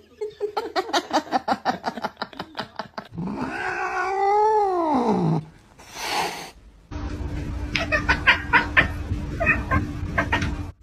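A cat's long drawn-out meow, rising and then falling in pitch over about two seconds, comes about three seconds in. Before it there is a quick run of short clicks, and after it a steady low hum with scattered clicks.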